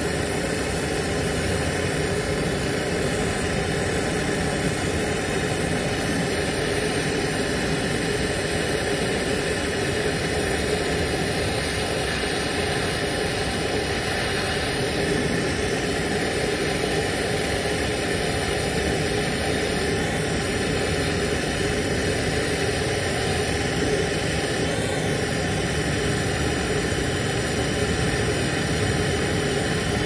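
Brazing torch flame burning with a steady rushing hiss while a copper refrigerant line is brazed to repair a leak.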